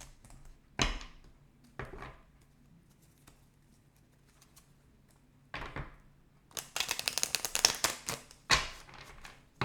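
Tarot cards being handled: a few separate slaps and taps on the deck, then a rapid run of flicking clicks lasting under two seconds as the cards are shuffled.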